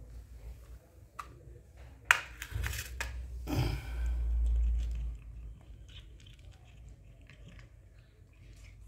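A cat crunching dry kibble, with faint, quick, irregular crunches through the second half. In the first half come a few sharp clatters and knocks, the loudest about two seconds in.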